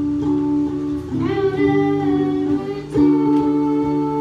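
A boy singing a song, with acoustic guitar accompaniment; the voice comes in about a second in and holds long notes over the guitar chords.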